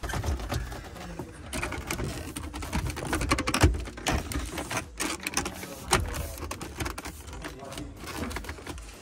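Rapid, irregular mechanical clicking and rattling with scattered sharp knocks, the loudest about a third of the way in.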